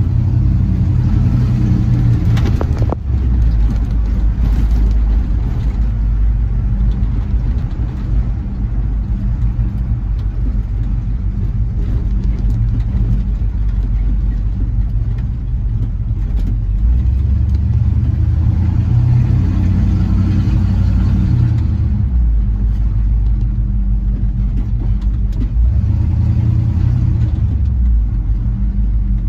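1978 Ford F100's 351M V8, with a Holley four-barrel carburettor and a single 3-inch exhaust through a Magnaflow muffler, running at low speed and heard from inside the cab. The engine note rises and falls a few times as the truck pulls away and eases off, with a single sharp click about three seconds in.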